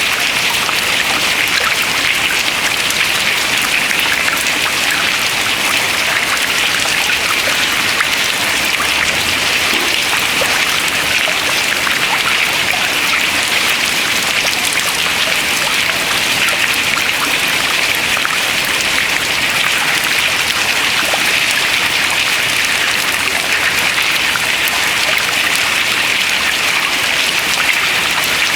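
Dense, steady patter of water dripping from melting ice into the water below, countless small drips blending into a rain-like sound.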